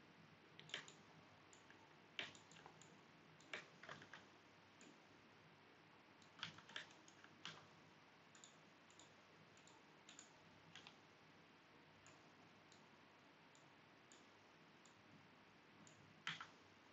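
Faint, irregular clicks of a computer mouse and keyboard, a single click or a short cluster every second or few, over quiet room hiss.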